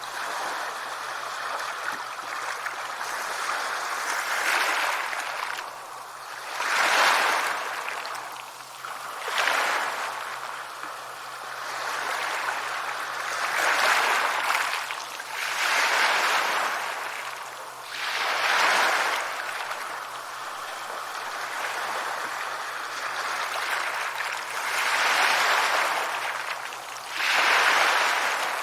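Sea waves breaking and washing onto the shore, the surf swelling up and fading away again every few seconds.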